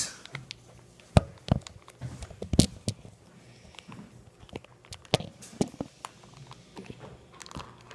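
Handling noise: irregular sharp knocks and clicks as the phone is moved about and set against a countertop and a plastic tub is handled. The loudest knocks come about a second in and again around two and a half seconds in.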